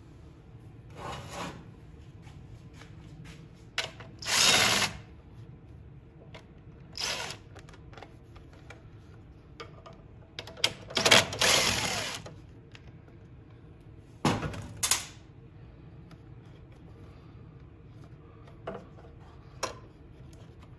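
Power driver with a socket extension spinning out bolts on a small engine in about five short runs of a second or so, the two longest about 4 and 11 seconds in, with a few light clicks later.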